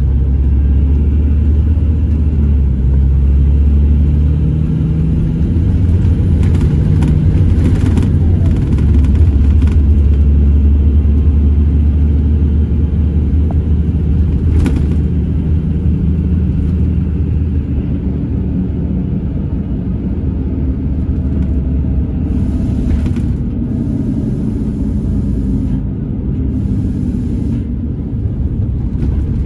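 Onboard sound of a Scania Irizar Intercentury 12.32 bus under way: the diesel engine's steady low rumble, its pitch stepping up and down several times as the bus speeds up and slows. A few light rattles sound in the middle, and three short high hisses come near the end.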